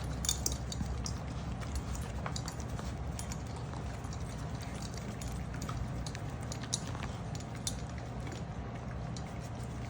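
Six-week-old puppies moving about, giving scattered light clicks and taps over a steady low hum.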